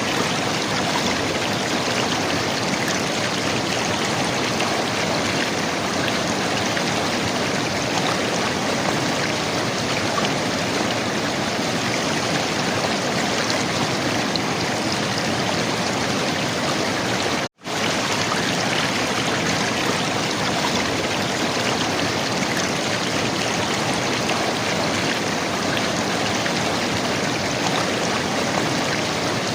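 River water running and gurgling in a steady, even rush. It cuts out completely for an instant a little past the middle, then resumes unchanged.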